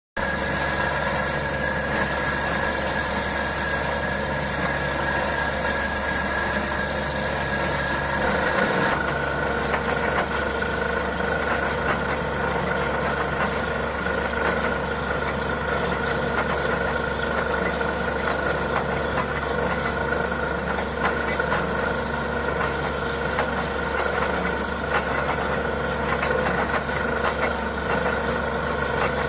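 Truck-mounted borewell drilling rig running steadily, its engine and air compressor blowing water up out of the borehole. The machine's pitch steps down slightly about eight seconds in.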